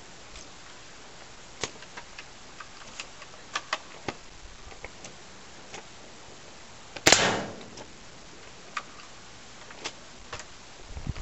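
A single airsoft shot from an L96 sniper rifle at a cardboard box target: one sharp crack about seven seconds in, dying away within half a second. A few faint ticks come before it.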